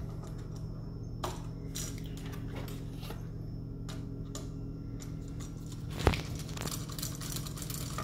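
Scattered small clicks and taps from handling a 3-way light switch and its copper wires while a wire is hooked onto a screw terminal, with a sharper knock about six seconds in. A steady low hum runs underneath.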